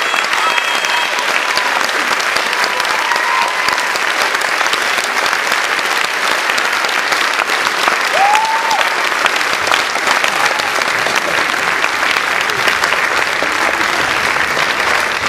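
Audience applauding steadily for the dancers' curtain call, a dense continuous clapping.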